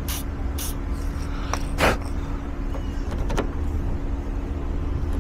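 A vehicle engine idling with a steady low hum. Three short hisses come in the first two seconds, and a couple of light clicks follow.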